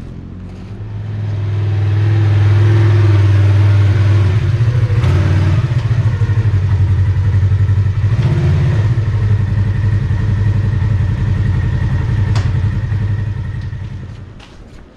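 A motor vehicle's engine running close by, then fading away near the end as it drives off.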